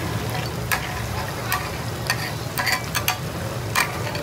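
Metal spatula scraping and clanking in irregular strokes on a large flat iron tawa where beef liver fries sizzling in oil, over a steady low hum.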